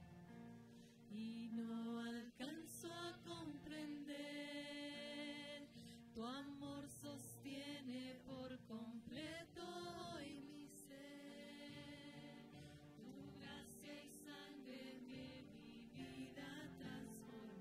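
Two women singing a slow worship song into microphones, in long held notes with vibrato over soft steady instrumental backing.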